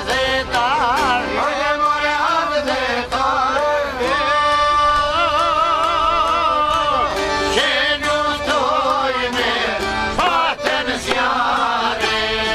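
Live Albanian folk music: a male voice singing long, wavering, ornamented notes over accordion, long-necked plucked lutes such as the çifteli, and frame-drum beats.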